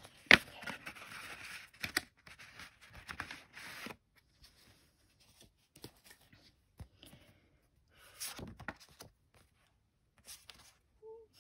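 A paper envelope being torn open, then its paper sheet and glossy photo prints slid out: a long stretch of ripping and rustling in the first four seconds, then scattered short paper scrapes and one brief rustle about eight seconds in.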